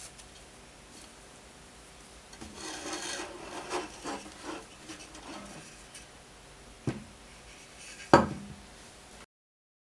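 Wood being rubbed or scraped by hand in a run of short scratchy strokes, then a knock and, about eight seconds in, a louder wooden knock.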